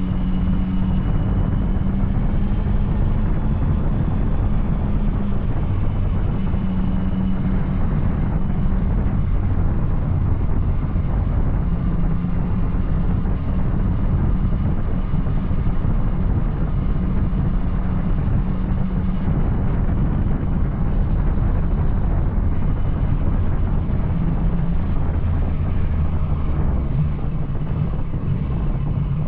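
Yamaha Tracer 900's three-cylinder engine breathing through an Arrow aftermarket exhaust, running steadily under way. Its pitch eases up and down a little a few times, with a steady rush of noise over it.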